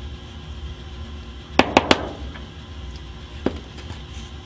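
Rusted lamp socket knocked against a cutting mat to shake debris out of it: three quick knocks about a second and a half in, then one more near the end.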